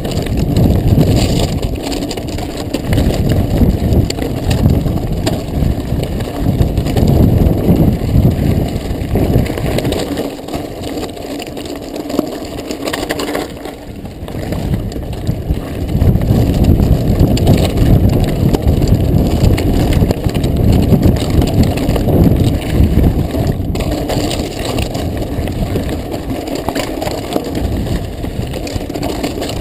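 Mountain bike rolling over loose volcanic gravel and lava rock: tyres crunching and the bike rattling and jolting over the stones in a continuous rough rumble, easing briefly about halfway.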